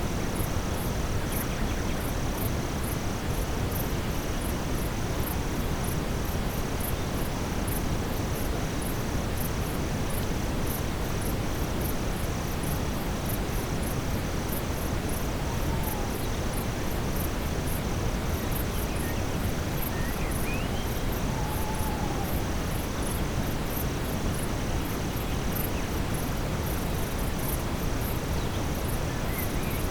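Steady brown noise under a nightfall forest ambience: insects chirp in a fast, even pulsing rhythm throughout, and a few faint short whistled calls come through around the middle.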